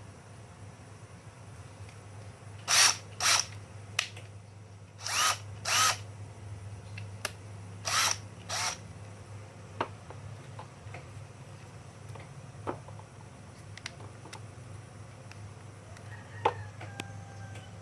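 Makita portable hand drill run in short trigger bursts: three pairs of quick spins, each well under half a second, followed by a few scattered clicks.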